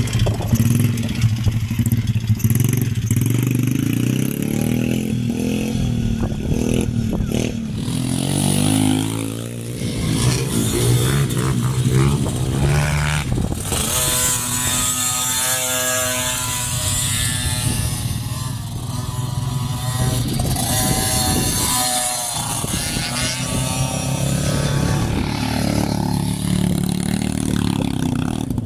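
Small off-road motorcycle engines of children's pit bikes and a mini motocross bike running and revving, their pitch rising and falling as the throttle is opened and closed. A higher-pitched engine note is heard from about halfway through.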